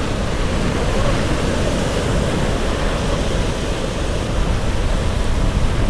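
Steady rushing noise of wind and water aboard a moving catamaran.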